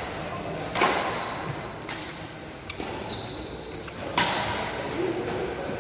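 Badminton rally: rackets striking the shuttlecock four times, about once a second, each hit echoing in a large hall, with shoes squeaking on the court floor between shots.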